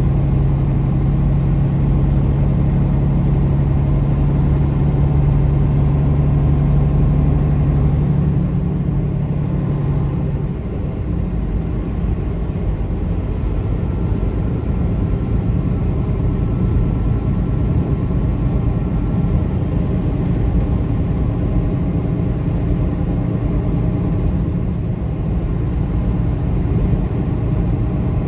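Car driving at speed: steady engine and road rumble, with a low engine hum that drops away about ten seconds in.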